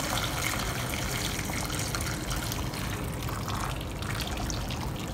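Fish soup pouring in a steady stream from a saucepan into a clay pot, trickling over pieces of fish head and yam.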